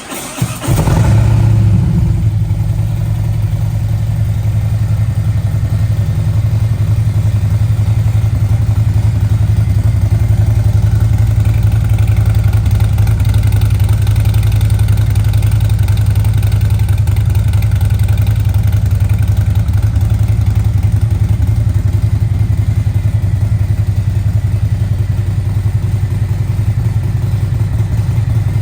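2019 Harley-Davidson Road Glide Special's 117 cubic inch V-twin, with Stage IV CNC-ported heads and a Vance & Hines exhaust, starting up: it catches within about a second and then idles steadily.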